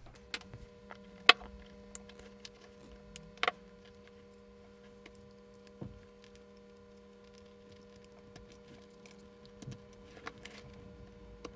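Scattered small clicks and taps of handling as the glass M4011 Geiger tube is pulled out of its metal spring clips and the circuit board is picked up and moved, with two louder clicks in the first few seconds. A faint steady electrical hum runs underneath.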